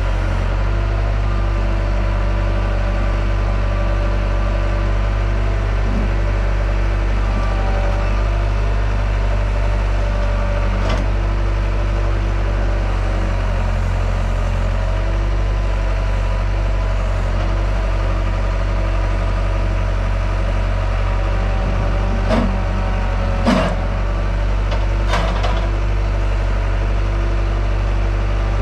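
Diesel engine of a compact construction machine running steadily at a constant speed. A few short clunks and knocks sound over it, the loudest about two-thirds of the way through.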